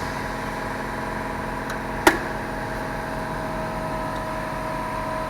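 Mercedes-Benz CLA 45 AMG engine running steadily with a constant hum, and a single sharp click about two seconds in.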